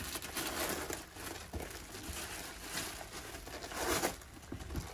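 Paper and plastic wrapping crinkling and rustling as a wrapped metal chandelier part is lifted out of a styrofoam packing tray. The rustle comes in irregular bursts and is loudest about four seconds in.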